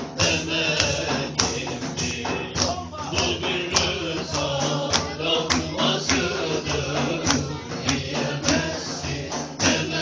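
Live music: hand percussion struck in a steady beat, about two strikes a second, under a wavering melody line.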